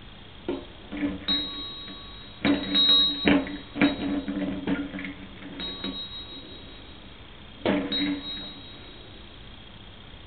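Toy fire engine bell rung repeatedly in irregular strikes, some in quick clusters, each leaving a short ring. There is a pause, then one last strike near the end.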